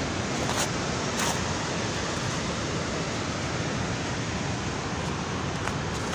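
Steady rushing noise of stormy weather, wind and rain, with a couple of faint clicks about half a second and a second in.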